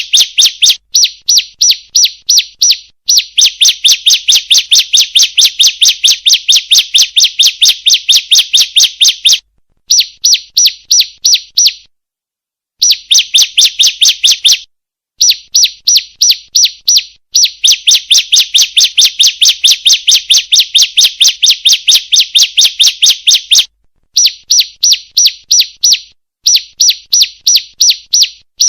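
Female bar-winged prinia (ciblek) calling: a rapid, loud run of sharp, high chip notes, several a second. The runs come in bouts broken by short pauses, including a longer one about twelve seconds in.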